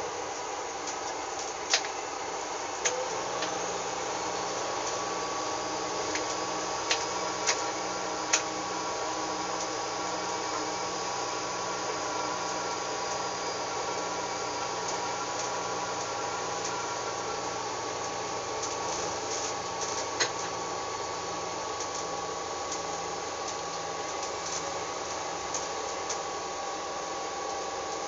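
Regional railcar running along the track, heard from inside the driver's cab: a steady running noise and hum with a low, evenly pulsing tone, and a handful of sharp clicks, most of them in the first ten seconds.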